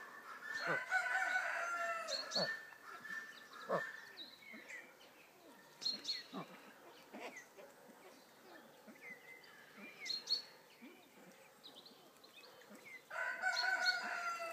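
Fowl crowing twice, a drawn-out call falling slightly in pitch, about a second in and again near the end, with short high chirps of small birds and scattered short calls between.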